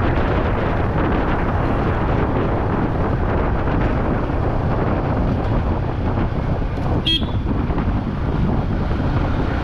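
Steady wind noise on the camera microphone and the running of a Yamaha R15 V3 riding through traffic, with one short horn toot about seven seconds in.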